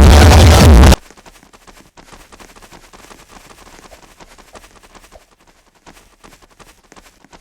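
Loud electronic music cuts off suddenly about a second in, leaving only faint, irregular clicks and taps.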